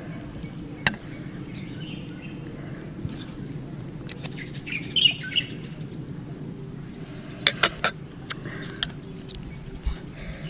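Small birds chirping in the background over a steady low hum. Later on, a few sharp clinks of a metal spoon against ceramic dishes as food is served onto rice.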